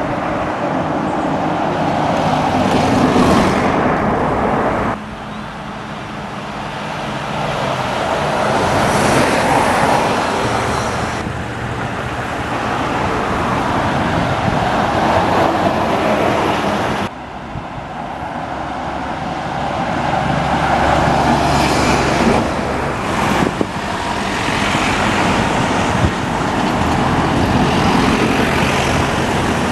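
Single-deck buses and cars passing along a street, their engines humming and swelling as each goes by. The sound cuts off sharply a few times, each clip starting again at a different pitch and level.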